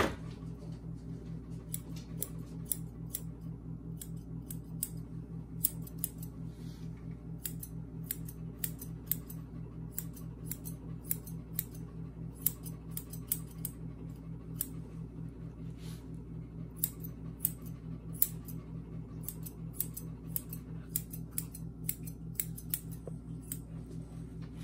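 Curved grooming shears snipping through a toy poodle's face and head hair: many quick, irregular metal snips in short runs with brief pauses, over a steady low hum.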